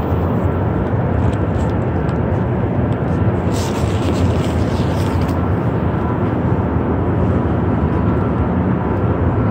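Steady rumbling noise inside an underground Montreal Métro station, with trains standing at the platforms, and a short hiss about four seconds in.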